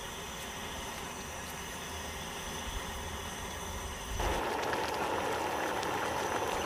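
Ramen broth boiling hard in a pot on a portable gas burner, a steady bubbling hiss with low rumble. It gets louder about four seconds in.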